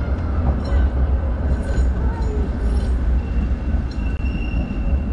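Steady low rumble of wind and road noise during a bicycle ride, with a high, steady squeal coming in about three seconds in.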